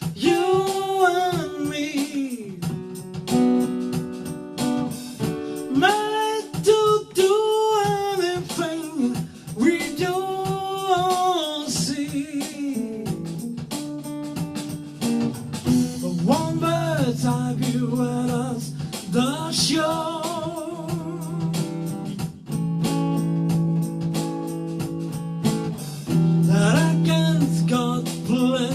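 Soul music: a voice singing over plucked guitar.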